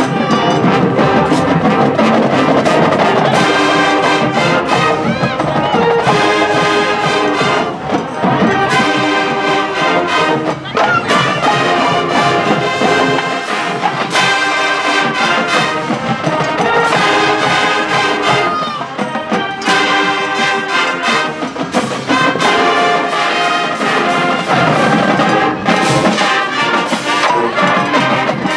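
Marching band playing loudly on the field: the brass section carries sustained chords and melody over steady drum strikes.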